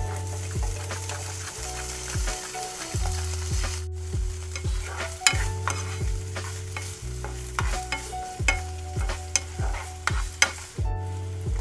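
Canned carrots and peas sizzling in hot oil in a nonstick frying pan, with a plastic spatula scraping and clicking against the pan as they are stirred. The sizzle is strongest in the first few seconds, after they go in.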